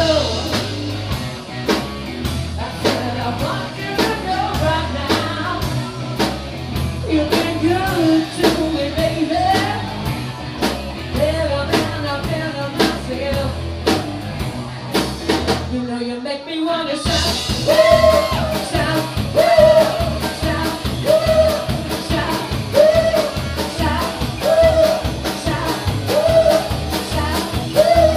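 Live rock band playing: vocals over electric guitar and a drum kit with a steady beat. About sixteen seconds in the band drops out briefly, then comes back in.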